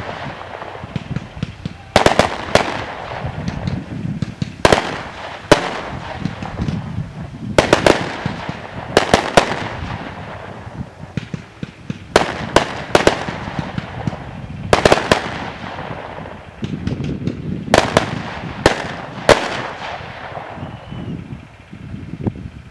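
Aerial fireworks bursting overhead in a string of sharp bangs, often in pairs or small clusters every two to three seconds, each trailing off in echo. The bangs stop a few seconds before the end.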